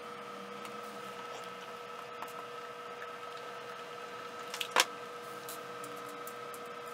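Small metallic ticks and clicks of a screwdriver and small screws as a 3.5-inch hard drive is screwed onto a power-supply bracket. A few sharper clicks come about two-thirds of the way through, over a faint steady hum.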